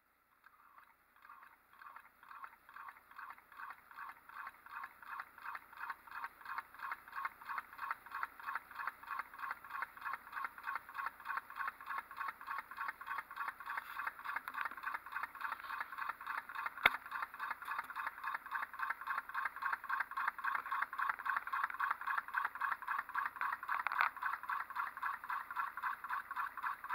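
Homemade 12-volt solenoid engine starting up and running: the solenoid plunger clacks in a steady rhythm, picking up speed over the first several seconds to about four clacks a second. One sharper knock about seventeen seconds in.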